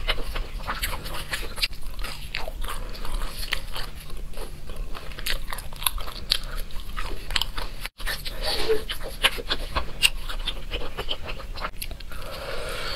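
Close-miked biting and chewing of Chinese sausage (lachang): a dense run of small wet clicks and snaps from the mouth and tearing casing, broken by a brief gap about eight seconds in.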